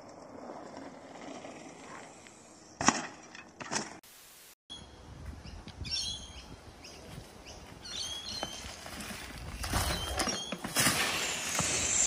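Two sharp knocks about half a second apart. Then birds chirping over rustling, and near the end a mountain bike crashing down into dry leaf litter and brush: a loud run of scraping, crunching and knocks.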